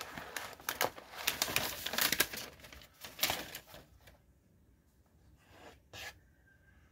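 Thin paper protective wrap being peeled and pulled off an iPad, crinkling and tearing for about four seconds, then a single light knock near the end.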